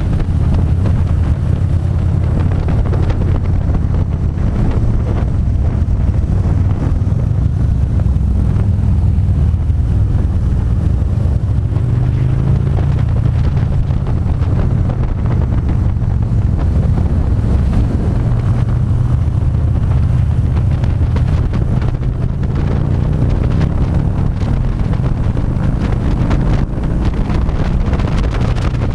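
Harley-Davidson V-twin motorcycle engine running steadily while riding, mixed with heavy wind noise on the microphone.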